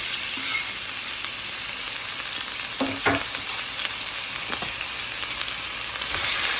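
Diced boneless chicken thighs sizzling in hot olive oil in a frying pan, a steady frying hiss that gets a little louder near the end. A few light clicks are heard, about three seconds in and again a little later.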